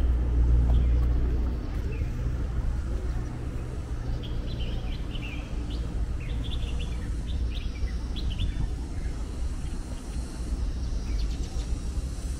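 City street ambience: a steady low rumble of traffic, loudest in the first couple of seconds, with small birds chirping in quick short notes from about four to nine seconds in.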